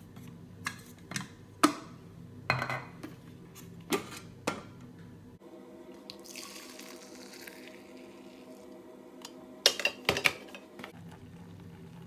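Hard plastic clicks and knocks as the Thermomix TM5's lid and measuring cup are handled. Hot soy milk is then poured with a soft splashing rush, followed near the end by a quick clatter of a plastic jug.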